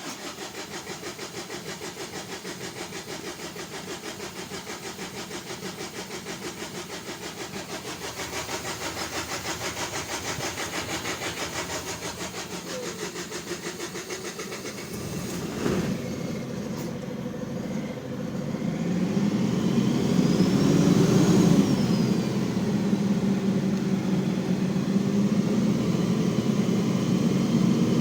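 Renault Midlum DXI5 5.0-litre diesel engine cranking on the starter with a fast even pulsing for about fifteen seconds before it catches, revs up and down briefly, then settles into a steady idle. This is a hard start, caused by a leaking fuel filter.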